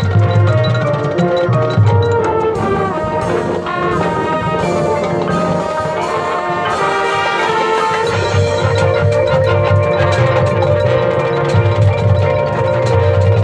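Marching band playing: brass sustaining chords over mallet percussion and drums.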